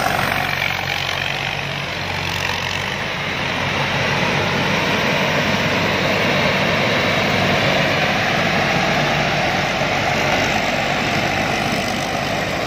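Rice combine harvester running steadily, its engine and machinery making a continuous mechanical din; a low engine hum drops away about two seconds in.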